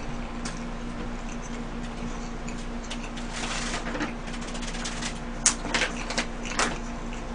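Paper burger wrapper crinkling and rustling as it is unwrapped and crumpled by hand, with a run of sharp crackles from about three seconds in, over a faint steady hum.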